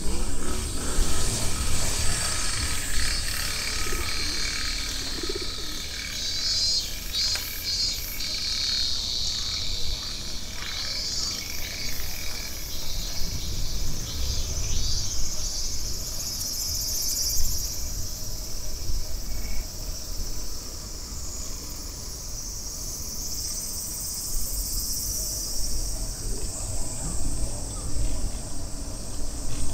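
A summer chorus of cicadas, a continuous high shrill buzzing that pulses in the first third, over a steady low rumble.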